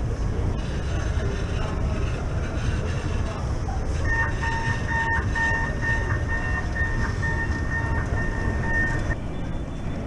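Airport escalator running with a steady low mechanical rumble. From about four seconds in, an electronic tone beeps repeatedly for about five seconds. Both sounds stop near the end as the sound changes to the quieter hum of a large hall.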